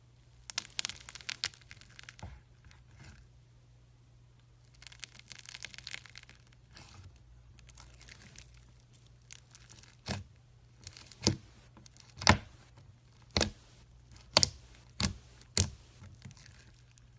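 Slime being squished and pressed by hand: stretches of dense crackling, then a run of about seven sharp pops.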